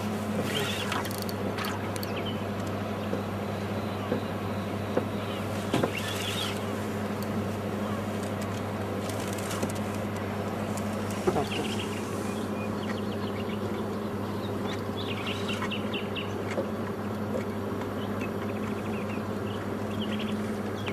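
A steady low motor-like hum that does not change in pitch, with a few faint high chirps and light clicks scattered over it.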